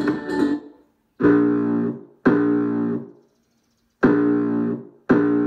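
Recorded music played over Bluetooth through a TPA3116D2 class-D amplifier board (Wuzhi ZK-502C) into a small speaker box. A passage of music cuts off about half a second in. Then four separate guitar-like chords follow, each ringing for about a second and fading into silence before the next.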